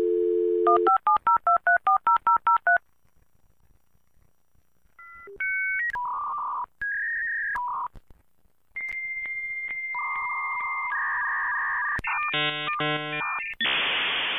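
Dial-up modem connecting: a dial tone, a quick string of about ten touch-tone digits, then a run of answering beeps and a long steady high tone, the screeching handshake, and a hiss that fades away near the end.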